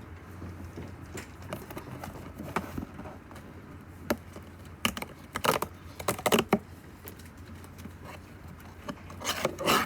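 Scattered light clicks and taps, with two louder bursts of clattering, one around the middle and one near the end, over a steady low hum.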